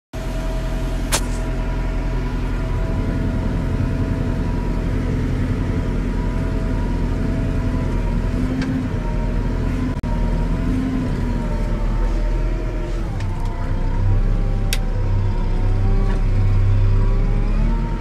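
McCormick MC130 tractor's diesel engine running steadily while pulling a Kverneland LB85 plough through the soil. Its whining tones waver slightly in pitch, and the deep rumble grows a little louder near the end. There are sharp clicks about a second in and again later.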